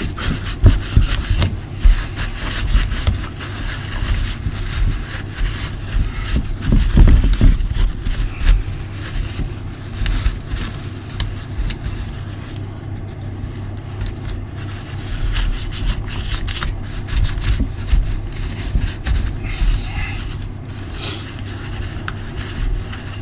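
Paper towel rubbing and scraping over a degreaser-sprayed RC nitro buggy as it is wiped down, with irregular knocks and clicks from the car being handled.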